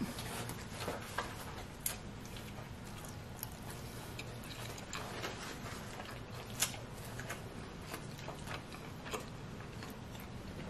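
A person chewing a mouthful of pepperoni pizza, with scattered sharp clicks and smacks of the mouth at irregular intervals. A faint steady low hum runs underneath.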